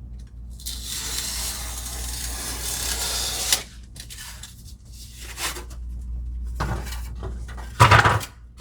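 A knife drawn along a straight edge through a thin polystyrene (Styrofoam) ceiling tile: one long scraping cut of about three seconds, then several shorter strokes. Near the end comes a louder handling noise as the piece is moved.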